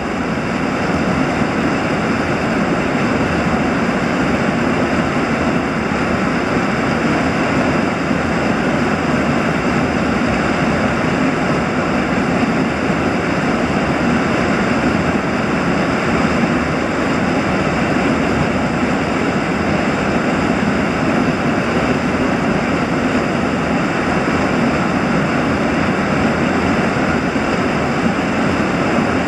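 Loud, steady rushing of turbulent white water churning over rock.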